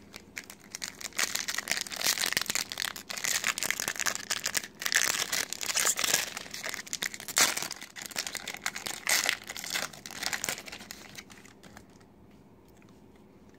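Pokémon booster pack wrapper crinkling and tearing as it is ripped open by hand, a long run of crackles that dies away about ten seconds in.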